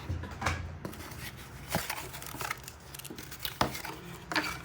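Toy box packaging being handled and pulled apart by hand: a scattering of short, irregular clicks, taps and crinkles.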